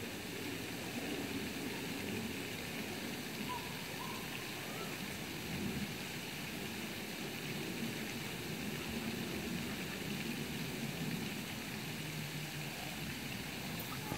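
Steady rushing outdoor background noise, even throughout, with a faint low rumble beneath it.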